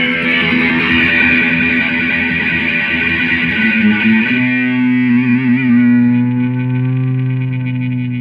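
Distorted electric guitar playing a loud held chord, which changes to a lower chord about four seconds in with a wavering vibrato, then begins to ring out near the end.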